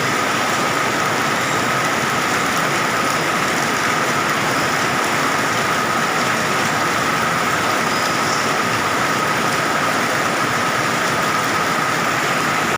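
Heavy rain mixed with falling hail in a summer hailstorm, an unbroken dense rush of noise at a steady level, with a faint steady high tone underneath.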